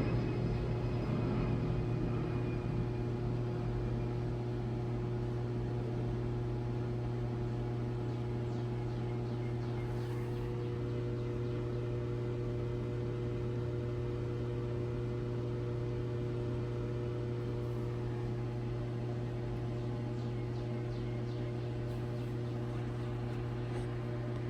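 Steady mechanical hum at an even pitch and level, with no change in speed.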